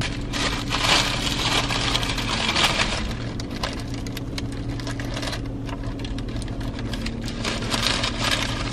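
A Taco Bell paper wrapper crinkling and rustling in the hands while a burrito is bitten and chewed, in two crackly spells, over a steady low hum.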